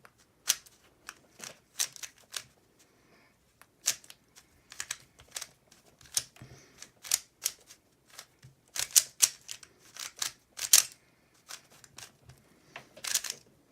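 3x3 Rubik's Cube being turned by hand, its plastic layers clicking in quick, irregular runs of clacks.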